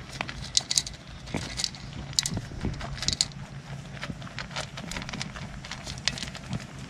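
Kiko–Boer cross goat kids eating grain from a shallow bowl: irregular crunching of grain being chewed, with quick clicks and rattles as their muzzles push the grain about against the bowl.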